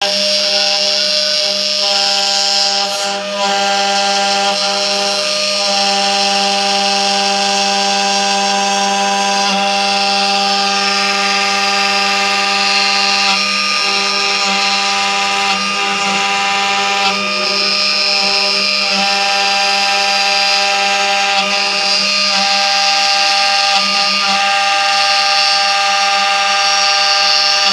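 CNC router spindle carving a flower-and-leaf relief into an MDF panel with a small tapered bit: a steady high whine of several tones over the hiss of the cut.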